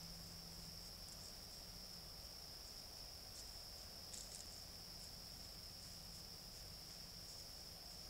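Steady, high-pitched trill of night insects, with a few faint ticks about four seconds in.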